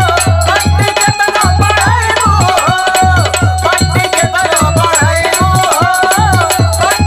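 Instrumental passage of a Bhojpuri dhobi geet folk song in kaharwa rhythm: a steady hand-drum beat under a gliding melodic line.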